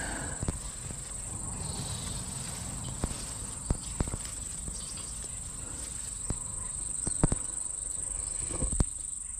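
Steady high-pitched insect chorus, with scattered sharp clicks and taps over it.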